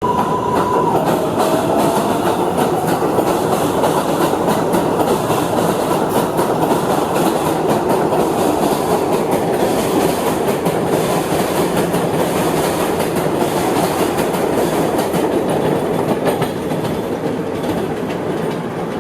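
A train pulling away from a station: a steady rumble with rapid clicking of wheels over the rails and a faint whine that drops in pitch about a second in. The sound eases off slightly near the end.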